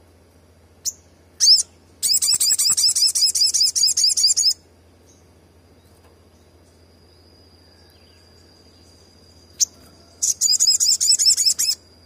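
Olive-backed sunbird calling: two short sharp notes, then a fast run of repeated high notes lasting about two and a half seconds; after a pause, another single note and a second, shorter fast run near the end.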